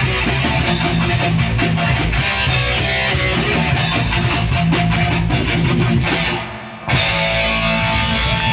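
A live rock band playing loud: electric guitar, bass guitar and drum kit. About six and a half seconds in the sound drops away briefly, then the whole band comes back in at once.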